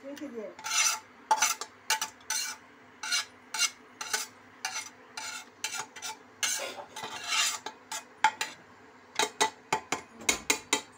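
A spoon scraping and stirring thick chicken curry in an open pressure cooker: a run of irregular scrapes against the pot, about two a second, some drawn out longer. A faint steady hum runs underneath.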